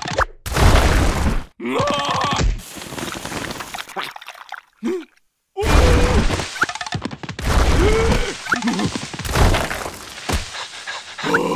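Cartoon scuffle sound effects: a run of thuds and whooshing, rumbling hits mixed with the animated larvae's wordless yelps and cries.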